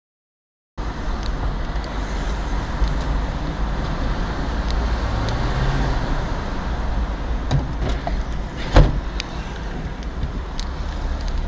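Silence for under a second, then steady engine and road noise heard inside a car's cabin moving in slow city traffic. A few light clicks, and one sharp knock about nine seconds in.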